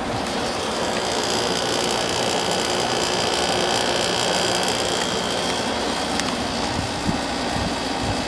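Quasar window air conditioner running on low fan with its compressor on: a steady rush of air from the blower over a low hum. A high, steady whine sits on top for the first five seconds or so.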